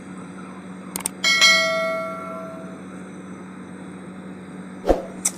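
A small bell struck once about a second in, ringing with several bright overtones and fading over about a second and a half. A few short clicks come before and after it, over a steady low hum.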